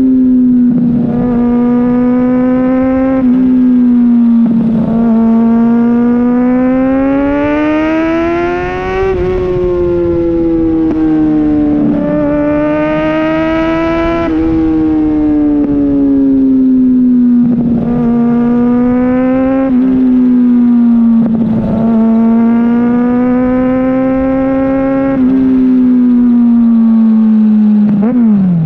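Kawasaki Ninja ZX-6R inline-four sport-bike engine under way. Its note climbs as it pulls and drops sharply several times, about nine times over the stretch, as when changing gear or rolling off the throttle.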